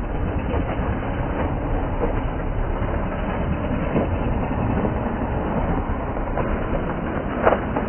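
Small engine of a motorized drift trike running steadily as the trike rides across the asphalt, a rough continuous rumble. A single sharp knock sounds near the end.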